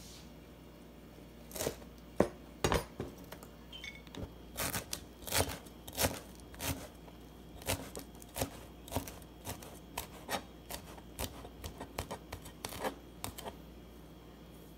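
Kitchen knife chopping fresh cilantro on a cutting board: irregular sharp knocks of the blade striking the board, about two a second, starting about two seconds in.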